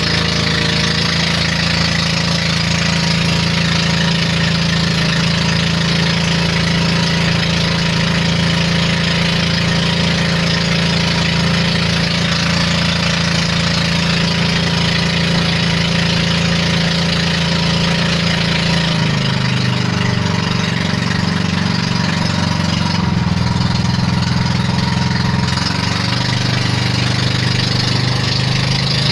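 Motorboat engine running steadily under way, with a steady rushing noise above it. Its note changes about two-thirds of the way in.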